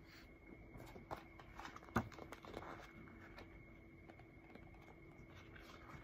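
Picture-book pages being handled and turned: soft paper rustles and taps, with one sharper tap about two seconds in, over a faint steady room hum.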